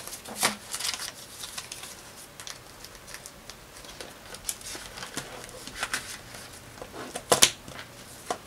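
Paper banknotes and clear plastic zip pouches in a ring-bound cash binder rustling and crinkling as cash is handled and the pouches are turned, with scattered light clicks and one sharper click about seven seconds in.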